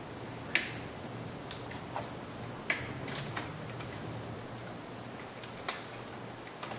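Irregular sharp plastic clicks and taps as a screwdriver is worked against a switch in a pickup's plastic interior door panel to lever it out. The three loudest clicks fall about two to three seconds apart, with fainter ticks between them.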